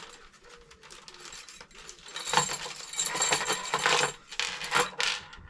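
Small metal fittings, screws and brackets, clinking and clattering against each other as they are handled, with a busy run of sharp clinks from about two to five seconds in.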